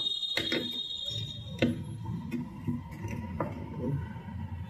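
A few light clicks and taps of metal tweezers and a soldering iron working a diode loose on a circuit board. Behind them runs a steady electronic whine: a high tone fades just after the start, and a lower one sets in about a second in.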